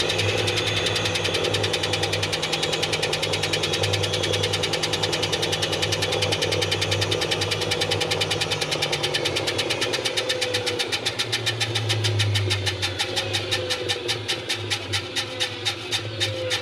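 Washing machine running with balloons in its drum: a steady motor hum under a fast, even beat that slows in the last few seconds, with a few short squeaks.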